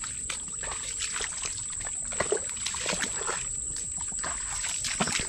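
Bare feet wading through shallow water and soft mud, with irregular splashing and squelching steps. A steady high-pitched whine runs underneath.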